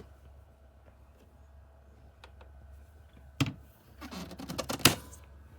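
A few faint ticks, then a sharp knock about three and a half seconds in, followed by a quick run of clicks that ends in a louder click near the end.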